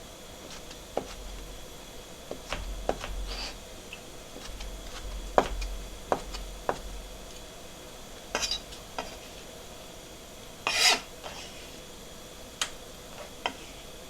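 Kitchen utensils clinking and knocking against dishes and pans, scattered irregular strikes, with two short scraping sounds, the louder one near the end.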